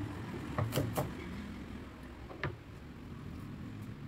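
Kitchen knife knocking on a wooden cutting board about three times, twice close together around a second in and once more near the middle, during fine chopping of red onions.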